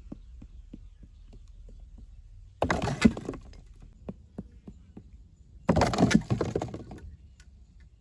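Two bursts of crackling, scraping noise, the second longer, from a hard hand-held lump worked against dry, gritty ground, with scattered faint clicks between them.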